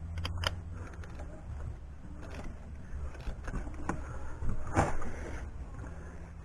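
Scattered light clicks and knocks of hand tools and parts being handled during spark plug work in an engine bay, a little louder about four and a half to five seconds in, over a steady low hum.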